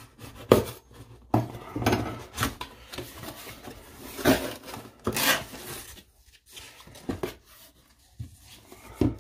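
Cardboard box and packaging being opened and handled by hand: irregular rustles and scrapes with several sharp knocks.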